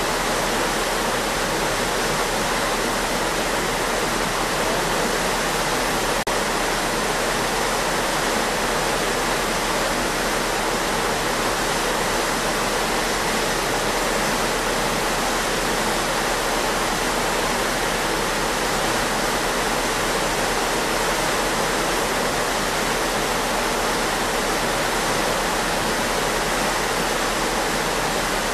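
A ship's wake churning behind the stern: a steady, even rush of water with a low hum underneath.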